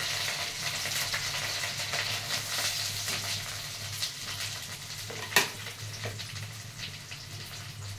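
Oil sizzling in a kadai as curry leaves fry, with chopped onions and green chillies tipped into the pan; the sizzle grows gradually quieter. A single sharp click about five seconds in is the loudest moment.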